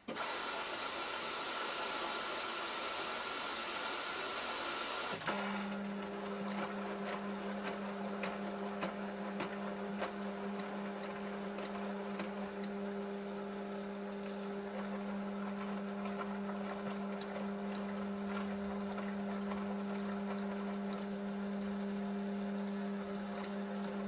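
Samsung Eco Bubble front-loading washing machine running its wash cycle. For about five seconds there is a hiss with a steady high tone, then a steady low motor hum with faint, irregular ticks from the turning drum.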